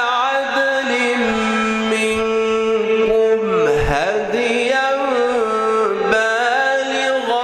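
A man chanting Quran recitation in the melodic mujawwad style: long held notes with ornamented turns, sliding up and down in pitch, with a deep downward swoop about halfway through.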